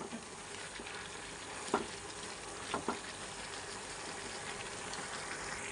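Chicken pieces and chopped green capsicum sizzling in a pan as they are sautéed. A spatula stirs them with a few scrapes and knocks against the pan, about a second and a half in and twice near the middle.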